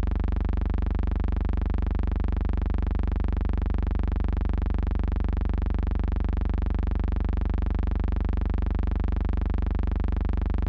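Steady, loud electrical hum with a buzzing edge and a fast, even pulse, unchanging throughout, with no other events.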